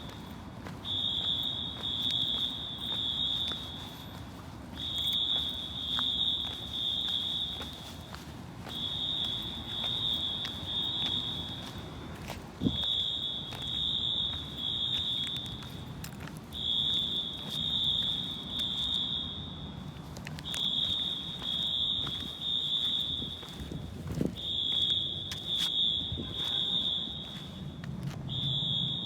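Fire alarm horns (Wheelock AS horn strobes on a synchronized Notifier system) sounding a high, harsh tone in groups of three blasts, repeating about every four seconds: the temporal-three evacuation pattern. Two brief sharp knocks come through partway along.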